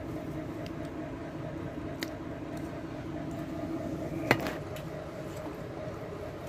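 Eating by hand from a steel plate: soft squishing of dal and rice with a few light ticks, and one sharp click about four seconds in. A window air conditioner hums steadily underneath.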